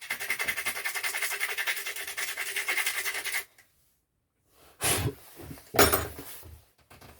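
Stihl FS130R strimmer's small four-stroke engine running with a fast, even beat, then cutting out suddenly after about three and a half seconds, followed by two knocks. The engine dying is what the owner puts down to a loose cable connection.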